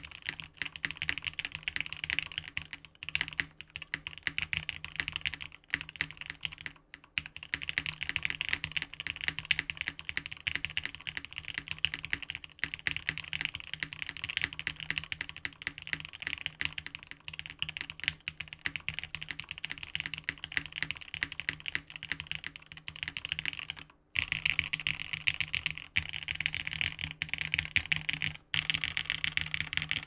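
Fast, continuous typing on a Kaze TKL custom mechanical keyboard: O-ring-mounted polycarbonate plate, lubed and filmed Ultraglide linear switches, PBT keycaps. The stream of keystrokes breaks off briefly a few times.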